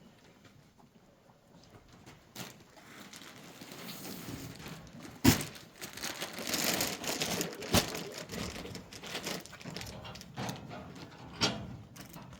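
Rustling and crinkling of dry cattle feed being handled at a barn trough, with a few sharp knocks, the loudest about five seconds in.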